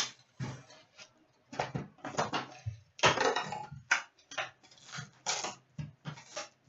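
Irregular crinkling, rustling and tapping of trading-card packaging being handled and opened, in short bursts of varying length, over a faint steady low hum.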